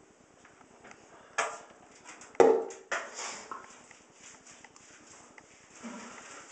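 Knocks and thumps in a bathtub while a wet West Highland White Terrier is shampooed and scrubbed. The loudest is a sharp thump about two and a half seconds in, among a few softer knocks.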